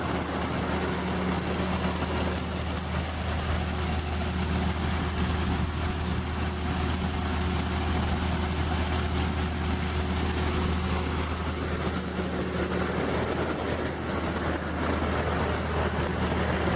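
John Deere 6620 combine running steadily while it stands, heard from inside the cab as a constant low engine hum with a faint higher whine over it.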